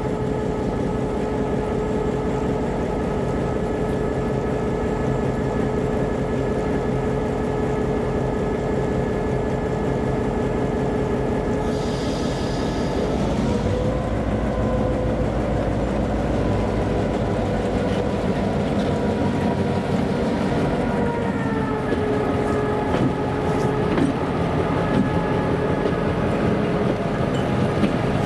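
EMD GP38-2 diesel locomotive's two-stroke V16 engine running as it moves cars: a steady drone that steps up in pitch about halfway through as the throttle is notched up, then drops back about eight seconds later. A brief hiss comes just before the rise.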